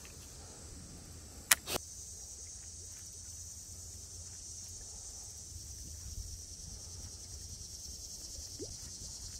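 Steady high-pitched insect chorus, crickets most likely, with two sharp clicks close together about a second and a half in.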